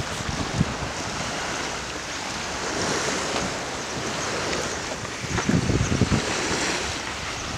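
Wind buffeting the microphone over a steady rush of sea waves, with a stronger gust of low rumbling a little past halfway.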